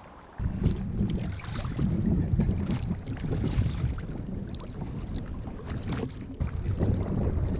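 Wind buffeting the microphone as a heavy, uneven low rumble, with small splashes of water against a kayak. It starts abruptly about half a second in.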